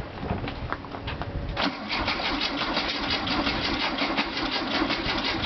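A 1967 Volkswagen Beetle's air-cooled flat-four being cranked by the starter motor. An even rapid churning of about seven strokes a second begins about a second and a half in, after a few clicks, and the engine does not fire. The owners suspect no spark at the points.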